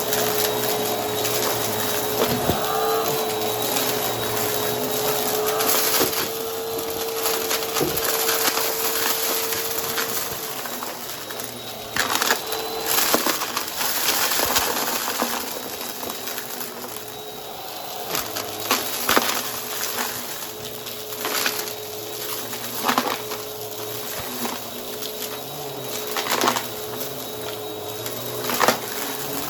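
Vacuum cleaner with a spinning brushroll running with a steady motor whine while it picks up crunchy debris, crackling throughout with several sharp cracks in the second half.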